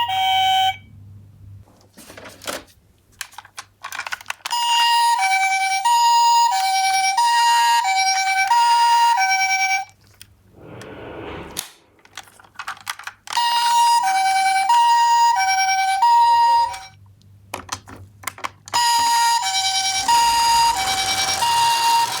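Toy ambulance minicar's electronic siren playing a two-tone hi-lo pattern, in several runs of a few seconds each. Between the runs come clicks and knocks and one short rushing noise.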